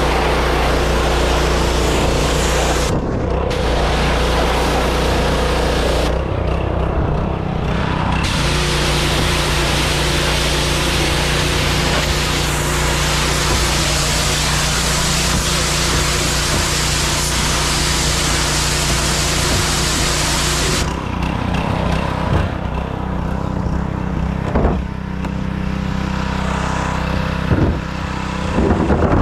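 Pressure washer blasting water at a plastic wheelie bin: a loud hiss of spray that pauses briefly about 3 s in and again from about 6 to 8 s, over the steady hum of the washer's engine. The spray stops about 21 s in, leaving the engine running, and a few knocks follow.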